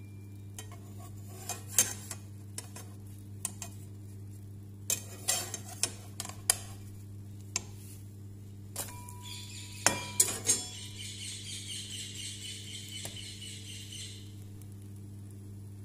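A metal spatula clicking, tapping and scraping against a non-stick frying pan as a thin pancake is turned and lifted out, with a dozen or so separate sharp knocks. About ten seconds in, a few seconds of continuous high-pitched sound begin and then stop.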